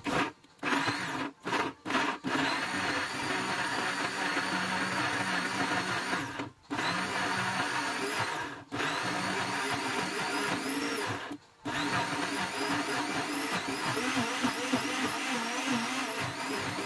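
Electric countertop blender chopping ginger pieces in water. It is pulsed on and off three times in the first two seconds, then runs steadily, with a few brief stops along the way, its pitch wavering as the load shifts.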